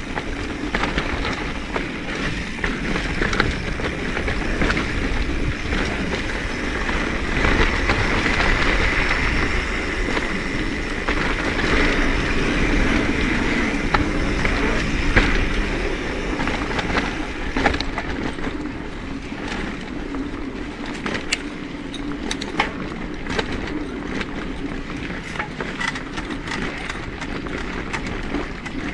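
Mountain bike rolling down a dirt trail: steady tyre noise on dirt and gravel, with rattles and clicks from the bike over bumps that come thicker in the second half, and wind rumbling on the action camera's microphone.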